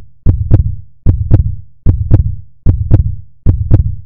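Heartbeat sound effect: a loud, steady lub-dub double thump repeating about every 0.8 seconds, roughly 75 beats a minute, five beats in all.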